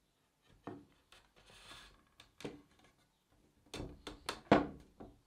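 A wooden rail being fitted into a stopped sliding dovetail socket by hand: a string of sharp wood-on-wood knocks and a short rubbing slide. The knocks bunch together near the end, and the loudest comes about four and a half seconds in.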